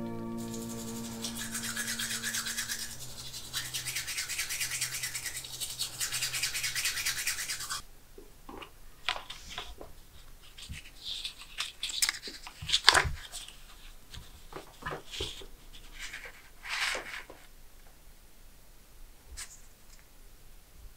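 Hands rubbing against skin in a steady hiss that stops abruptly about eight seconds in. Then paper handling: a booklet of Papier d'Arménie paper incense picked up and opened on a wooden table, with scattered short rustles and taps, the loudest about thirteen seconds in.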